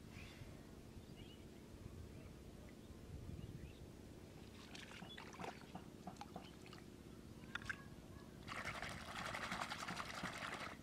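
Muddy water in a shallow hole being worked by hand and foot: scattered small splashes and clicks, then about two seconds of continuous splashing near the end that stops suddenly.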